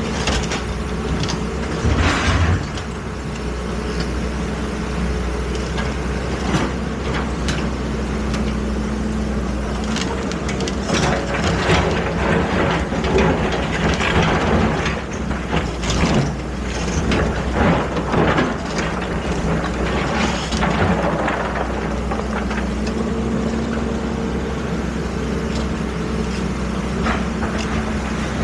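Excavator engine running steadily, with many sharp knocks and clanks that come thickest in the middle stretch.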